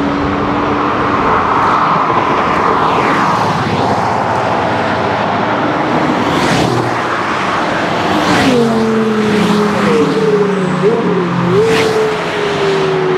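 Bugatti Veyron's W16 engine passing on a race track, its note falling away as it goes, followed by a group of other sports cars driving past with engine notes that drop and then rise and fall.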